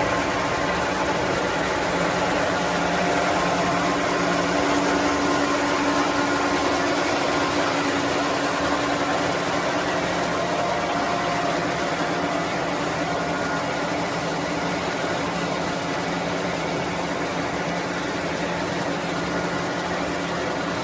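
Paper core machine running steadily: an even mechanical hum with a few held tones over a constant hiss, with no starts, stops or changes in speed.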